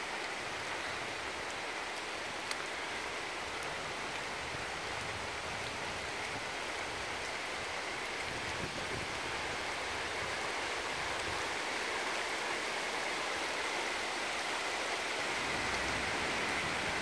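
Steady, even hiss of outdoor background noise, growing slightly louder near the end.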